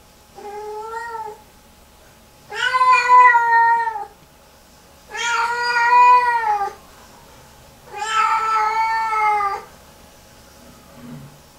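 Lynx point Siamese cat yowling: four long, drawn-out calls, the first one softer and shorter, the other three loud. This is distress crying of the kind the owner calls a meltdown, which comes back hours after her bath.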